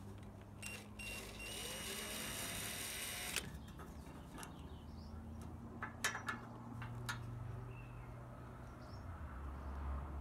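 Cordless drill driving a screw into a metal bracket: the motor whirs for about two seconds, and a few sharp clicks follow a little after the middle.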